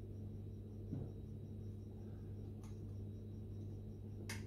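Steady low hum with a few faint small metal clicks as a bolt is started by hand into a mechanical fuel pump mounting on an engine block; the sharpest click comes near the end.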